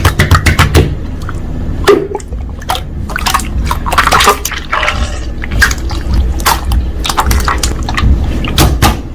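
Slime being squished and pressed by hand, giving a run of irregular wet clicks, pops and squelches.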